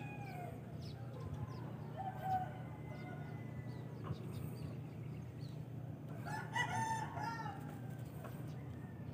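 A rooster crowing once, a call of about a second past the middle, with a shorter call at about two seconds, over a steady low hum.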